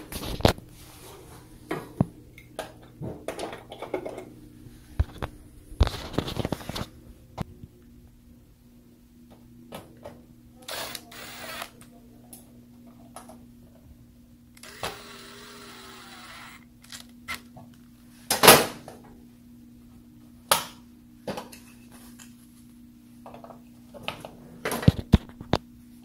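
Scattered clicks, knocks and rattles of hands and a nut driver working on sheet-metal parts as an electric range's infinite switch is fitted back into its control panel, with a sharp knock about two-thirds of the way through. A faint, steady low hum runs underneath.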